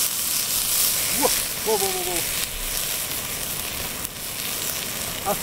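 Garlic frying in hot oil in a steel frying pan over a portable gas burner, sizzling and spattering steadily, with a few sharp pops; the oil flares up into flames in the pan. A brief wordless vocal sound about a second in.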